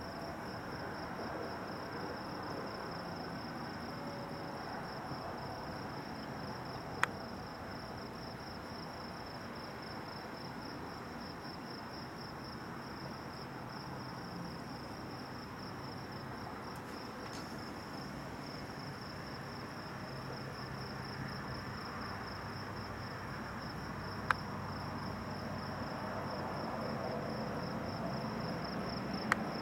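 Crickets chirping in a steady, fast-pulsing high-pitched chorus over an even background hiss, with three single sharp clicks spread through.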